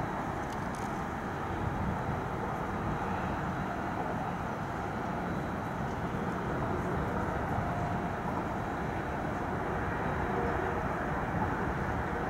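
Steady outdoor background noise: wind on the microphone over a distant hum of city traffic.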